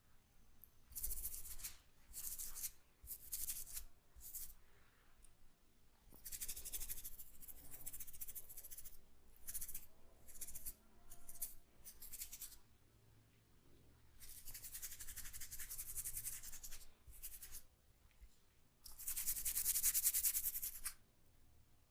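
Hands rubbing oiled hair and scalp during a head massage: a series of short, hissy rustling strokes, with longer stretches of steady rubbing about six seconds in, around fourteen seconds and near the end.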